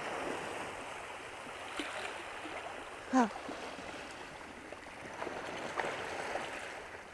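Steady rush of sea water washing over the shore rocks. About three seconds in, a short voice sound falling in pitch, like a sigh, cuts through briefly.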